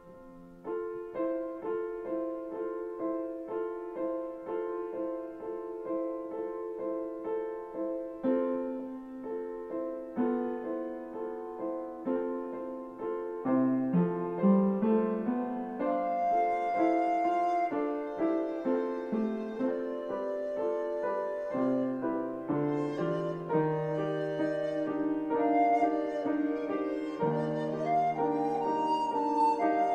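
Piano and recorder music: the piano plays an even pattern of notes, about two a second. From about halfway it grows louder and busier, with held higher notes above it.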